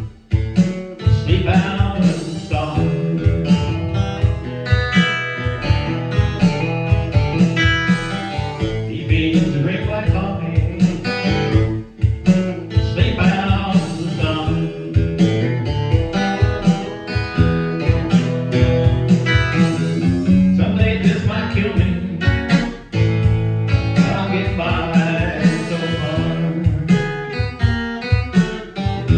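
Acoustic guitar playing a bluesy country tune, strummed in a steady rhythm.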